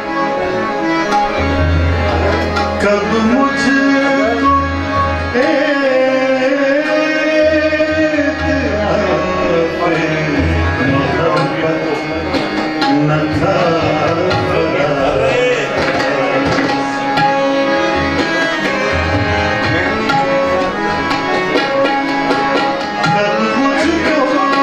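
Live ghazal in Raag Kirwani: a male voice sings gliding, ornamented phrases over sustained harmonium chords, while tabla keeps the rhythm with deep bass-drum strokes.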